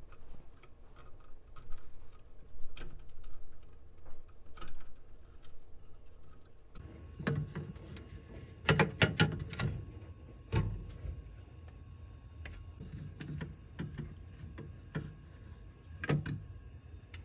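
Handling noise while taking out an amplifier module: scattered clicks as plastic wire-harness connectors are unplugged, then a burst of knocks and clatter about halfway through as the heatsink-mounted amplifier board is worked out of the chassis, with another sharp knock near the end.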